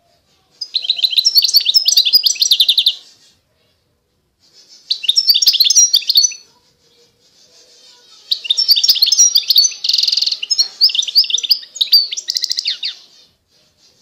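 A caged finch singing three phrases of rapid twittering trills, the last one the longest with a short buzzy note in the middle.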